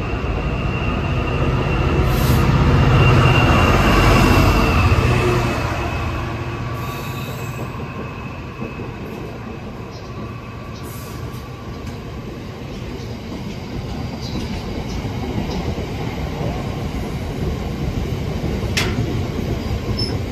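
Freight train passing close through a station. The locomotive goes by loudest a few seconds in, with a thin high whine over it. Then a long rake of box wagons rolls past with a steady wheel rumble.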